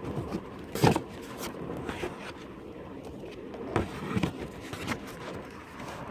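Cardboard box and packaging being handled: scattered knocks and scrapes, the loudest about a second in, with a couple more near the middle, over a steady background noise.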